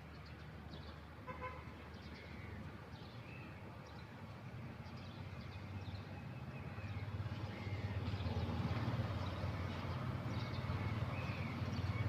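A steady low rumble that grows louder in the second half, with a short horn-like toot about a second in and scattered short chirps.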